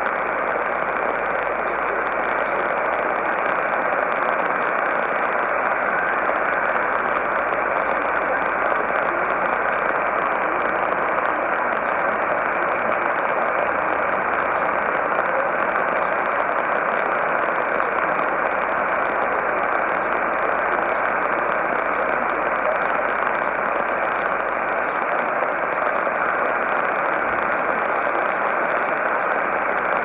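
Sony ICF-2010 shortwave radio tuned to 12210 kHz AM in narrow sync mode, putting out a steady, dense hiss of static and noise with no clear speech or music standing out above it. The sound is cut off above the narrow filter's passband, giving it a muffled, band-limited tone.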